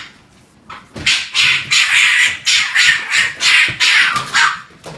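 Frightened red fox cub giving a rapid run of harsh, hissing calls, about three a second, starting about a second in and stopping just before the end.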